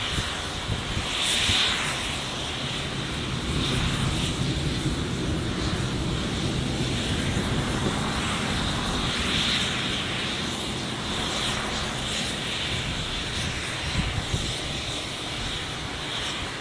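A steady engine drone that swells for several seconds and then eases, with wind buffeting the microphone.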